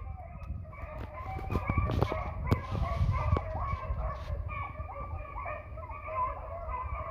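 A pack of beagles baying on a rabbit chase: many overlapping, repeated howling cries that keep going. A few sharp knocks in the first half.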